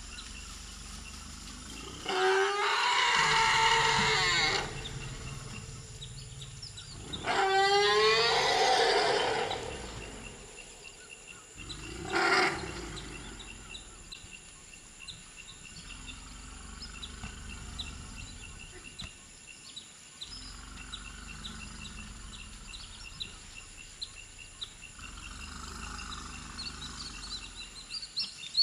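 Forest elephants greeting each other: two loud calls, each two to three seconds long, a few seconds apart, then a short third call about twelve seconds in, with low rumbling between. These are excited reunion calls between a mother and her juvenile son.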